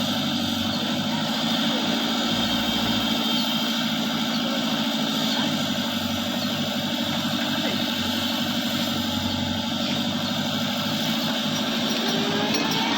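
JCB 3DX backhoe loader's diesel engine running steadily, with its pitch rising near the end.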